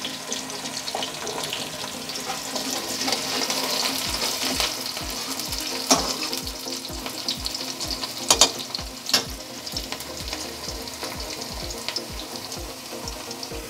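Chopped onion and green chillies sizzling in hot oil in a kadhai, stirred with a slotted steel spatula that scrapes and clicks against the pan now and then. The onions are being sautéed toward light brown.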